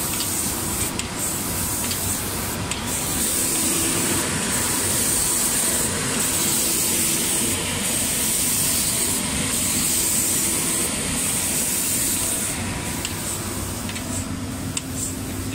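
Automatic spray painting machine running, with a steady compressed-air spray hiss over a low machine hum. The high hiss drops out briefly about every one and a half to two seconds.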